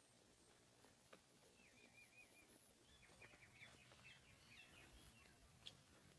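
Faint chirping of small birds: a run of short twittering calls through the middle seconds, over a near-silent background.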